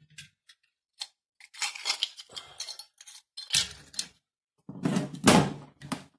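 Hands turning the cable adjuster on a Shimano Nexus 8 hub's shifting unit to line up its setting marks: irregular small clicks and scrapes of plastic and metal, loudest about five seconds in.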